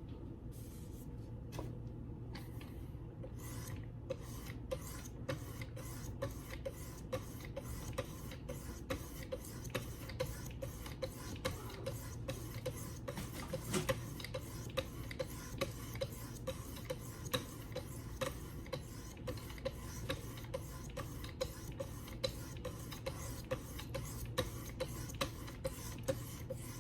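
800-grit stones on a Wicked Edge guided sharpener stroking along the edge of a D2-steel Ontario Rat II knife. The rasping strokes are sparse at first, then settle a few seconds in into a steady rhythm of about two a second over a low hum.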